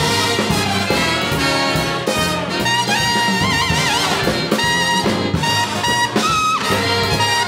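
A big jazz band playing live, with trumpets, trombones and saxophones sounding together. About three seconds in, a high held note wavers up and down for about a second.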